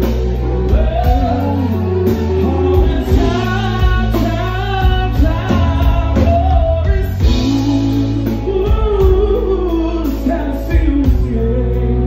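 Live rock band: a man singing a long melodic line into a microphone over electric guitar and drums.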